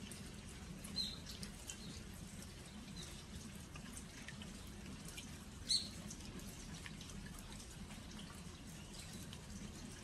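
Autumn rain dripping onto Korean earthenware storage jars (jangdok), many small scattered drop ticks over a steady hush of rain. Two louder short high chirps of a bird stand out, about a second in and just before six seconds.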